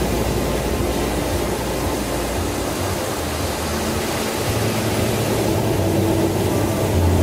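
Ocean surf washing on a sandy beach, a steady rushing noise, with a low droning tone underneath that shifts pitch a couple of times.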